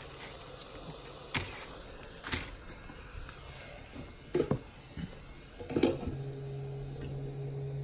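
A laptop keyboard being peeled and pried off its plastic palmrest gives a few sharp cracks and snaps as the heat-softened plastic rivets holding it give way. A steady low hum starts about six seconds in.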